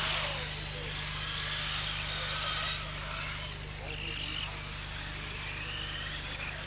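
Radio-controlled model buggies racing, their motors whining high and gliding up and down in pitch as they speed up and slow down, over a steady low hum and background chatter.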